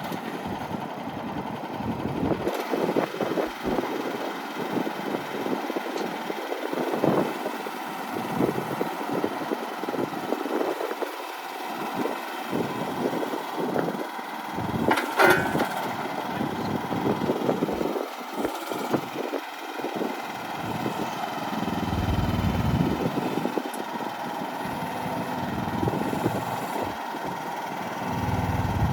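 The small engine of an AGT industrial mini excavator running steadily at idle, its level wavering. A brief sharp, high-pitched sound comes about fifteen seconds in, and low rumbling swells come later.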